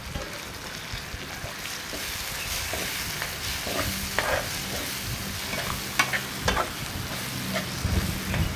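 Mutton brain frying in onion-tomato masala in a metal frying pan, with a steady sizzle, while a metal slotted spatula stirs it and now and then scrapes and clicks against the pan.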